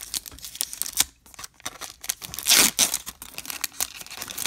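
Foil wrapper of a 2022 Bowman Platinum baseball card pack being torn open by hand, crinkling and crackling, with one loud rip about two and a half seconds in.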